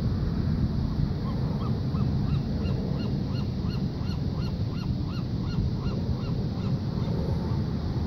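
Steady rush of heavy surf breaking. From about a second in, a bird gives a rapid series of short calls, about three a second, each rising and falling in pitch, that fade out near the end.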